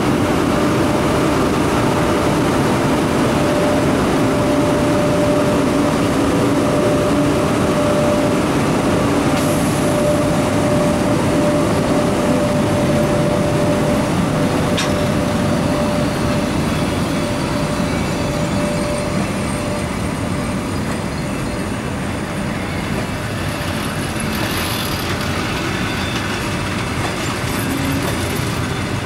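EP1M electric locomotive drawing an express passenger train away from a station platform at low speed, passing close by with a dense steady running noise and a held tone that fades out about two-thirds of the way through. Near the end the passenger coaches roll past on the rails.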